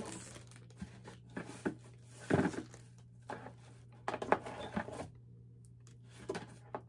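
Plastic wrapping crinkling and rustling as a wrapped light stand and its cable are handled, with scattered light clicks and knocks against the cardboard box.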